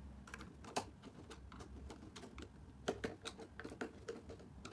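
Irregular light clicks and taps from handling a small plastic remote control.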